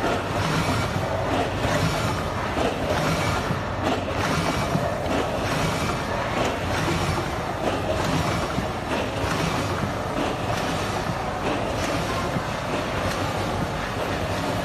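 Rotary premade-pouch packing machine running at production speed. Steady mechanical clatter with frequent sharp clicks.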